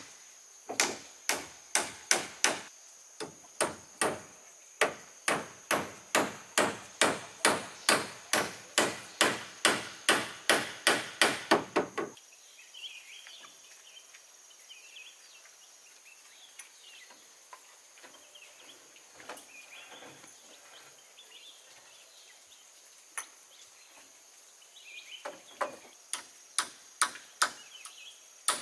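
Hammer blows on wood, about two a second, coming faster near the end of a twelve-second run. Faint scraping and handling sounds follow, then the hammering starts again near the end.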